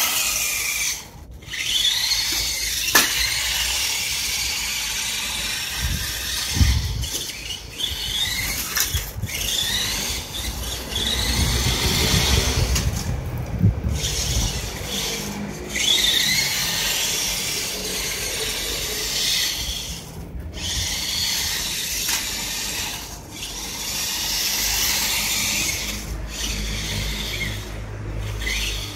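Electric motor and gears of a KD Summit S600 RC monster truck whining as it drives, the pitch rising and falling with each burst of throttle and cutting out briefly several times. A sharp knock about three seconds in.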